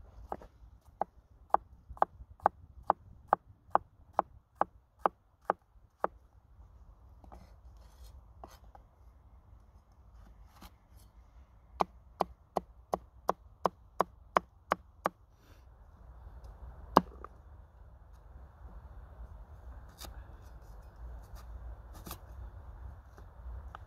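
Knife chopping carrots on a wooden cutting board: two runs of quick, even chops, about two to three a second, with a few scattered cuts between them. Near the end, a single hard chop and a few lighter cuts as a cleaver goes through a white root vegetable.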